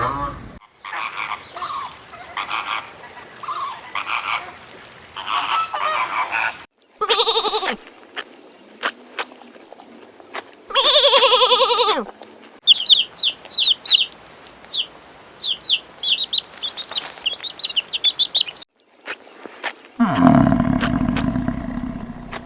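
A string of different animal calls joined by abrupt cuts: pitched honking or bleating calls, one loud call with falling pitch about halfway, then a run of rapid high bird chirps, and a loud low sound near the end.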